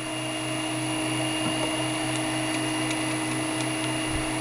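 Freshly rewound three-phase induction motor running steadily from a frequency inverter at 52 Hz: an even hum with a high whine above it. This is its first test run after rewinding, before varnish impregnation, with the phase currents balanced at about 1.5 A.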